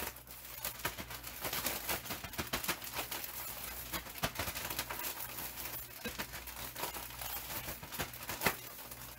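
Plastic zip-top bag holding flour, cornmeal and seasonings being shaken to mix a fish breading: dense, irregular crinkling and rustling of the plastic, with the dry mix shifting inside.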